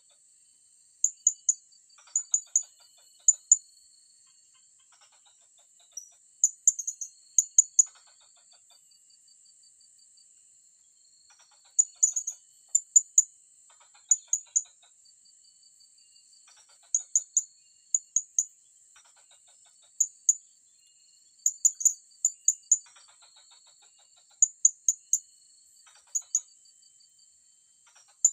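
Blue-crowned hanging parrots (serindit) calling: short, sharp, high-pitched notes in quick clusters of two to four, repeated every second or two, over a steady high-pitched whine.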